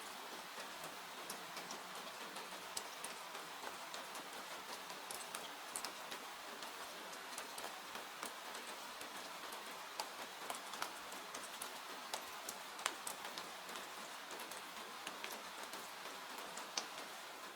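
Steady rain hiss with irregular sharp crackles and pops from a wood fire in a fireplace.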